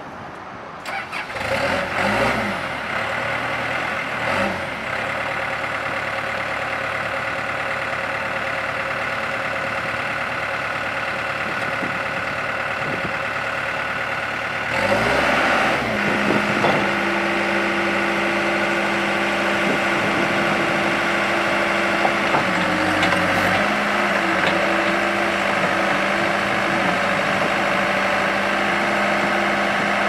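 Case 445T 4.5-litre four-cylinder turbo diesel of a Case 580N backhoe running, revving up and back down a few times in the first seconds and again about halfway, then holding a steadier, higher pitch and slightly louder as the backhoe arm is swung and lowered.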